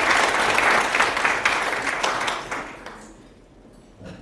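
Audience applauding, dying away about three seconds in.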